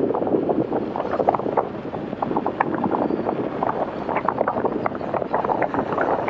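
Wind rushing and buffeting over a motorcycle helmet and its microphone at riding speed: a steady rush full of short crackles.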